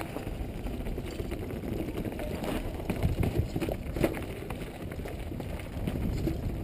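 Downhill mountain bike descending a dirt trail fast, heard from a helmet-mounted camera: tyres rumbling over the ground and the bike rattling, with scattered sharp knocks from bumps.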